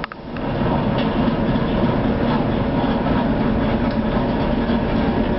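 Steady running noise of an ER2T electric multiple unit heard inside the driver's cab: a continuous rumble with a hum, and a few faint clicks.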